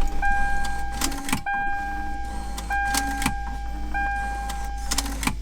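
Lexus LX470's warning chime with the key switched on, a single ringing tone repeating four times about every 1.3 seconds, over a steady low hum.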